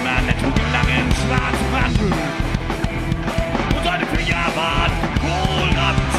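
Live rock band playing: electric guitars, bass guitar and drum kit, loud and steady throughout.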